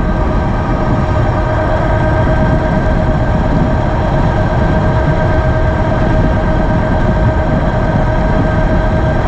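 Geared hub motor of a 60-volt-upgraded Ariel Rider X-Class e-bike whining at a steady pitch under full throttle at about 37 mph, over heavy wind rumble on the microphone.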